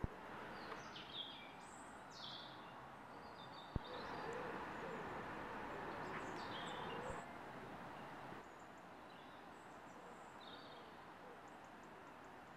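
Outdoor ambience of birds: short high chirps from small songbirds and some lower calls, over a steady background hum. A single sharp click sounds about four seconds in.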